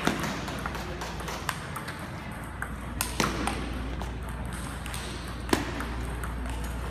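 Table tennis ball clicking off paddles and the table during a rally, in an irregular series of sharp ticks. Fainter clicks come from rallies at neighbouring tables.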